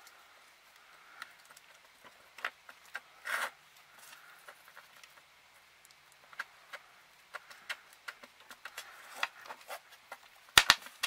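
Hands handling bottle-cap pendants and their cord on a bench: scattered light clicks, taps and rustling, with two sharp clicks near the end.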